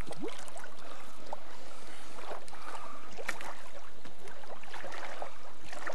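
Steady rush of river water with light sloshing and small splashes around people kneeling in the shallows.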